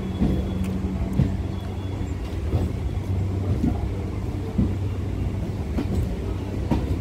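Electric suburban local train running along the line: a steady low hum with short knocks from the wheels over the rail joints, about one a second.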